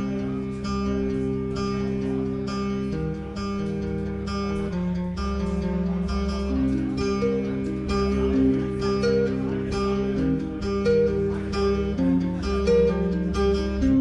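Instrumental guitar piece built up with loop pedals: a steady rhythm of plucked notes played over held, looping bass notes.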